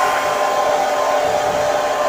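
Hair dryer running steadily, a constant blowing noise with a steady whine from its motor.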